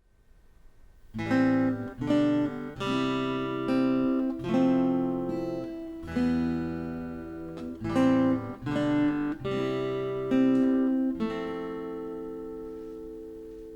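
Acoustic guitar strumming a slow series of chords, each left to ring; the last chord rings on and slowly fades.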